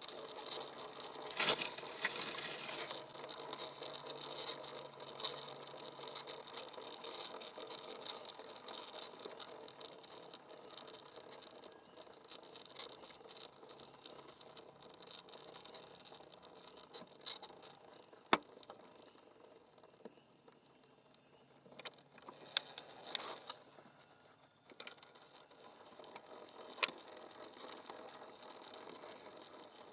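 RC crawler's small electric motor and gear drivetrain whirring at low speed, with scattered clicks and taps.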